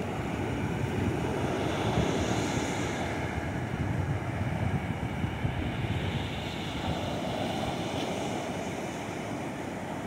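Ocean surf: waves breaking and washing up the beach in a steady rush that swells twice, with wind rumbling on the microphone.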